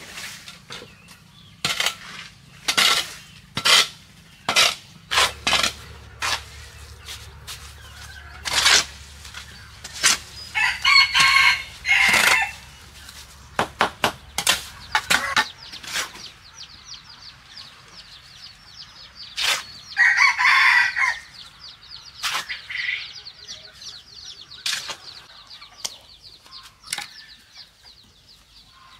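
A shovel scraping and chopping through wet cement mortar on a hard floor, a string of short sharp scrapes over the first half. A rooster crows twice, about eleven and twenty seconds in.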